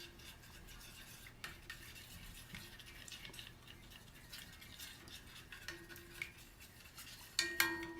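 Quiet kitchen clatter of utensils and dishes: soft scrapes and light clinks, with a louder clatter and brief ringing near the end.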